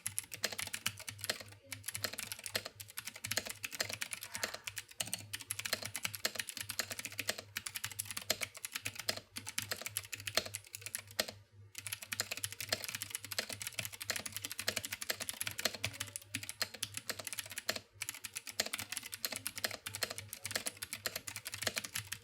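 Fast continuous typing on a Womier K66 mechanical keyboard with Cherry MX Blue switches, each keystroke a sharp click, with brief pauses a few times.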